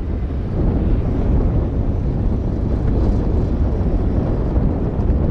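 Wind rumbling on the microphone over the running engine of a small dirt bike out on the track, getting louder about a second in.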